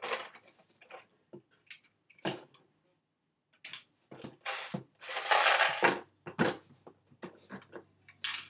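Plastic Lego parts of a coin-operated Lego candy machine clicking and clattering as it is handled to get at the quarter tray. Scattered clicks come first, then a louder, longer clatter about four to six seconds in, with quarters rattling.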